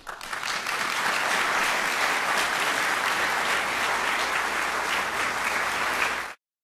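Live audience applauding at the end of an operetta song, a dense steady clapping that cuts off abruptly near the end.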